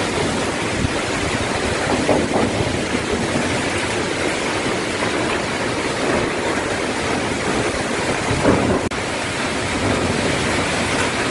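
Cyclone-force wind blowing steadily and buffeting the microphone, with gusts swelling about two seconds in and again near eight seconds.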